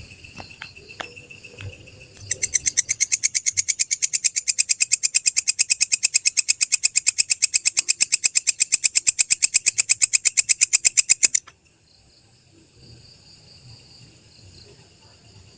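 Walang kecek katydid stridulating: a fast, even train of sharp chirps, about nine a second, that starts a couple of seconds in, runs for about nine seconds and cuts off suddenly. A faint steady high whine lies under it before and after.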